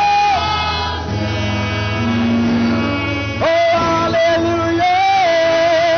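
Live gospel worship song: a man sings long held notes over band accompaniment. The voice drops out for about two seconds in the middle while the instruments carry on.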